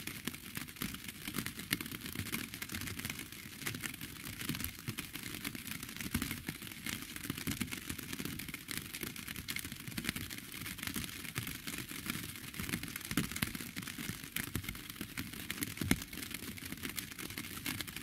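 Steady rain, heard as a dense, irregular patter of individual drops ticking on a hard surface.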